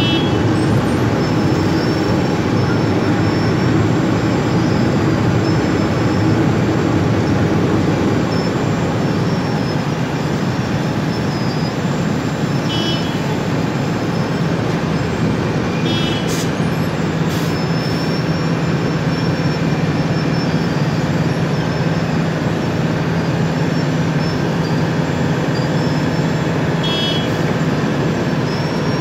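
Wirtgen cold milling machine running under load, its big diesel engine and cutting drum making a steady heavy rumble as it grinds up road asphalt and conveys the millings. The engine note drops a little about halfway through, with a couple of sharp knocks near the middle and a few short high chirps.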